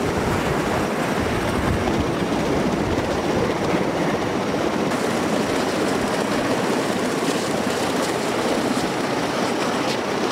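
Military transport rotorcraft running close by on the ground, a steady loud drone of rotors and turbine engines mixed with the rush of rotor wash.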